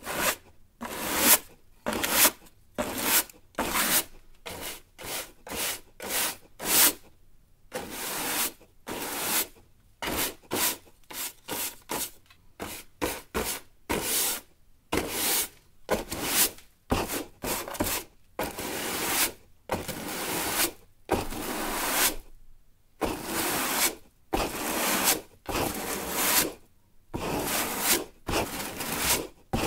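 A broom sweeping a floor: a run of brisk rubbing strokes, about one to two a second, with short pauses now and then.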